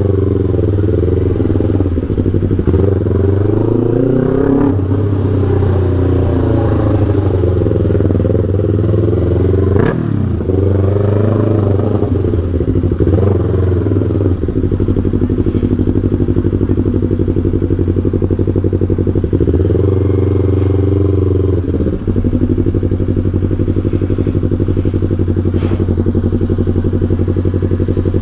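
Yamaha R3's 321 cc parallel-twin engine, remapped and breathing through a Full Pro aftermarket exhaust, running steadily with a few brief swells and dips in pitch.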